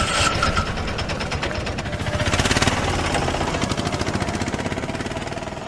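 Motorcycle engine running under way, a fast, even pulsing note that swells about two seconds in and fades away near the end.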